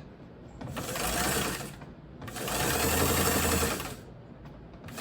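Singer K-328 sewing machine running on its foot pedal in two bursts of about a second and a half each, with short pauses between. It is on its first test run after its gummed-up gears were cleaned and re-greased, and it sounds pretty good.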